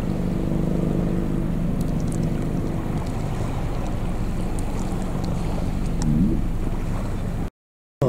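Low, steady engine drone, strongest over the first few seconds, over water lapping against the shore. A brief rising sound about six seconds in, and the sound cuts off abruptly just before the end.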